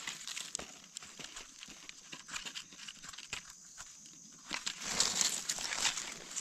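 Dry leaf litter crackling and rustling as gloved hands and a knife dig in loose soil, with scattered small clicks and scrapes; a louder stretch of rustling comes about five seconds in.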